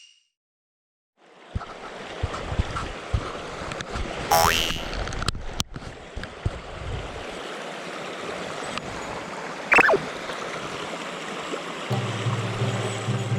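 Mountain stream water rushing steadily, starting about a second in, with scattered clicks and two short gliding tones over it. Steady low tones come in near the end.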